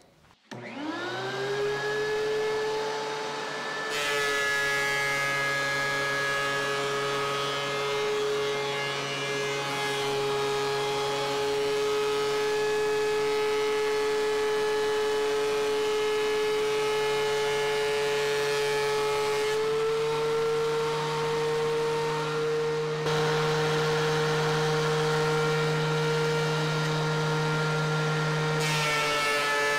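DeWalt DW735 thickness planer starting up, its motor and chip-ejection fan whining up to speed within about a second, then running steadily as a 2x4 is fed through. The whine shifts slightly in pitch a few times, sagging a little about four seconds in and rising again around twenty seconds, as the cutterhead takes and releases the load of the board.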